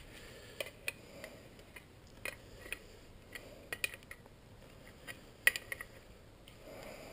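Faint, irregular clicks and taps of an adjustable wrench and pliers on a brass fitting as it is screwed onto a vacuum gauge, the loudest click about five and a half seconds in.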